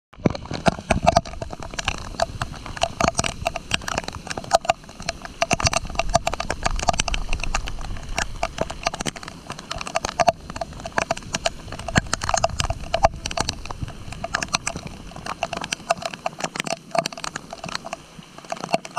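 Raindrops striking the rain suit's shell right at the microphone, a dense, irregular tapping. Underneath is a low rumble that fades out near the end.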